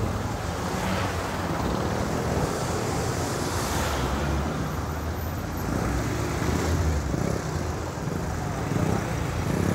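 Dirt bike engine running with a steady low note as it rides through traffic, with the surrounding traffic noise.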